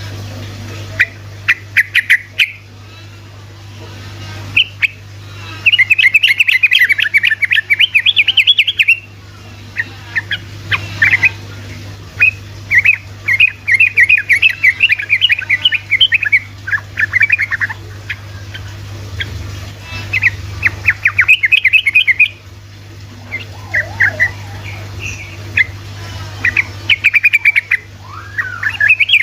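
Yellow-vented bulbul (trucuk) singing its lively rolling 'ropelan' song: long phrases of rapid, bubbling chattering notes, repeated every few seconds with short calls between, over a steady low hum.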